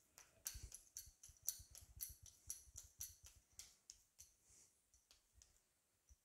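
Hands patting a ball of rice-and-jaggery anarsa dough flat between the palms: a quick run of soft pats, about three or four a second, thinning out after about four seconds.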